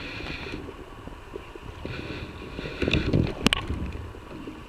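Wind buffeting the microphone over a flowing river, with a few sharp clicks about three and a half seconds in.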